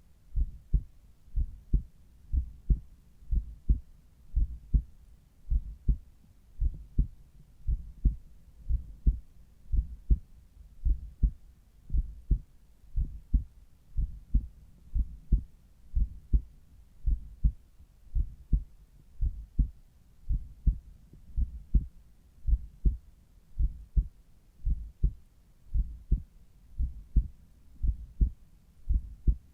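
Human heartbeat heard at the cardiac apex through a Littmann Cardiology IV stethoscope: a steady, regular rhythm of short, low lub-dub pairs.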